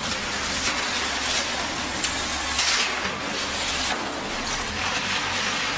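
Concrete block making machine running: a steady mechanical noise with a low hum, a sharp knock about two seconds in, and a brief louder burst shortly after.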